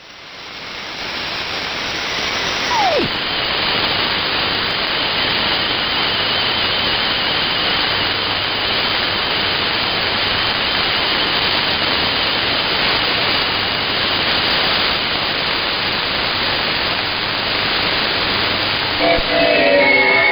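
Shortwave AM radio reception: a steady hiss of noise filling the receiver's audio band swells up over the first couple of seconds, with a faint steady high whistle under it. A single falling whistle sweeps down about three seconds in, and music starts faintly just before the end.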